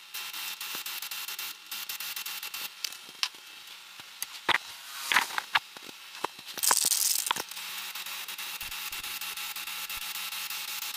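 Aerosol spray can of titanium grey paint hissing as it coats a car wheel, spraying at the start and again over the last few seconds. In between come knocks and clicks as the wheel is handled on its metal stand, and a short loud hiss about seven seconds in.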